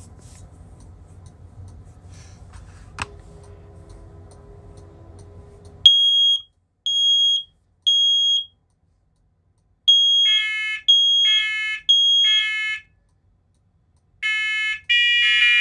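Linked smoke alarms going off in a test, sounding the three-beep temporal-3 pattern: one high-pitched alarm beeps three times about six seconds in, and after a short pause the next round of three has a second, lower-pitched alarm beeping along with it. Near the end more linked units join and their tones overlap.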